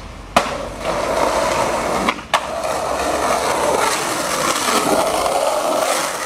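Skateboard: a sharp clack of the board hitting the ground, then its wheels rolling steadily over asphalt. A second sharp clack comes about two seconds in.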